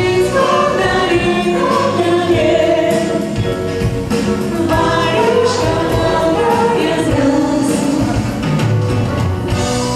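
Two women singing a pop song together into microphones, with keyboard-led instrumental backing.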